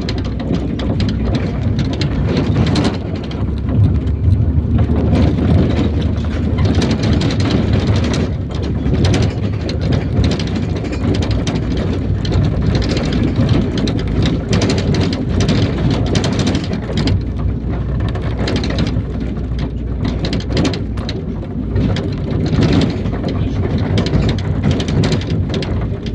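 IVECO Daily bus on the move, heard from inside: a continuous low rumble of engine and road noise, with frequent rattles and knocks from the body.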